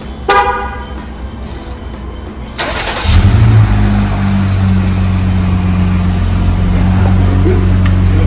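Jeep Wrangler JL engine cranked and catching about three seconds in, then idling with a loud, steady low rumble through a custom exhaust with a second resonator and no muffler. It is preceded by a short electronic beep just after the start.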